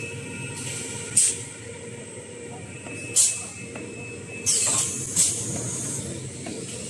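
Toilet-paper roll production line machinery running steadily, with four short, sharp hisses of air about one, three, four and a half and five seconds in.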